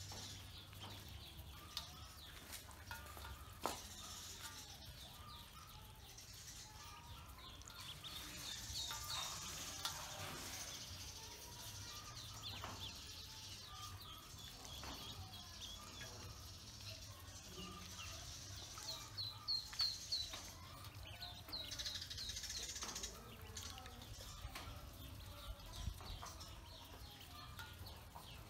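Ducklings peeping in runs of quick, high calls as they swim about in a metal basin of water, with light splashing. The peeping is loudest about twenty seconds in.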